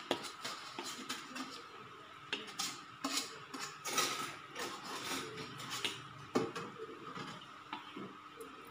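Perforated metal spoon scraping and clinking against a stainless steel pan while steamed glutinous rice is stirred into thick palm-sugar syrup, in irregular strokes.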